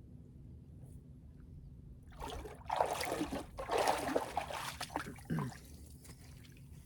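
Liquid trickling and sloshing, starting about two seconds in and lasting about three seconds, most likely the tea being poured or drunk.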